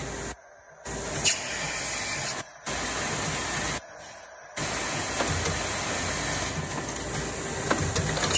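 Automatic cartoning and collating packaging machine running: a steady mechanical hiss and rumble with occasional sharp clicks, loudest about a second in and near the end. The sound cuts out briefly three times.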